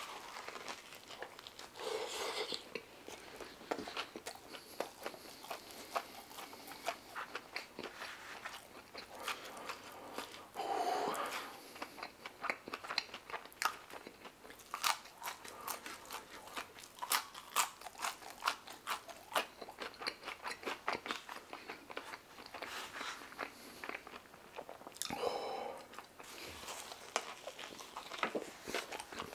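Close-miked chewing and biting of a shawarma wrap and fries: a steady run of many small mouth clicks and smacks, with a few softer swells of chewing in between.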